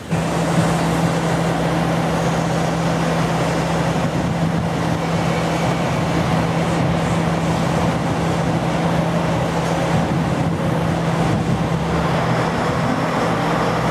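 KiHa 47 diesel railcar idling at the platform: a steady engine hum with one constant low tone that does not change in pitch or loudness.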